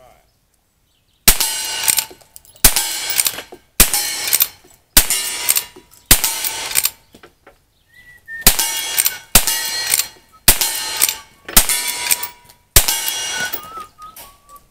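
Brass-framed lever-action rifle firing ten shots, about one a second, with a pause of about two seconds after the fifth. Several shots are followed by a short ring of steel targets being hit.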